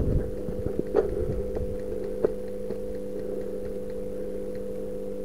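A steady machine hum made of several even tones, with a few faint clicks.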